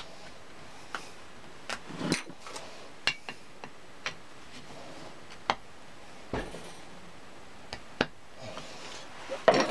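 About a dozen irregular sharp metallic knocks and clinks of hand tools on the cast-iron jaw of a Record No. 5 vise, as the jaw's screws are worked at; the screws are seized and will not come loose.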